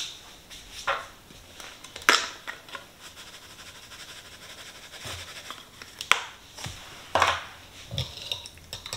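Seasoning shaken from a shaker over beaten eggs in a ceramic bowl, then a fork starting to stir them: a handful of separate light taps and clicks, about a second apart, with a run of quicker ticks near the end.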